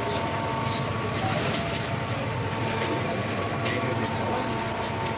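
Steady low rumble and hum of a busy street-food stall, with a few sharp clinks of steel plates and a ladle, several of them about four seconds in.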